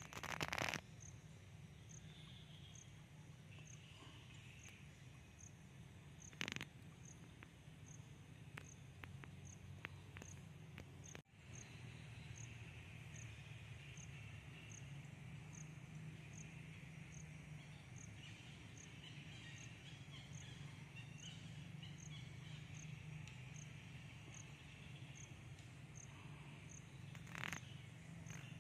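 Faint outdoor insect ambience: a high, even chirp about three times every two seconds over a steady insect hiss and a low hum, with a few brief louder noises near the start, about six seconds in and near the end.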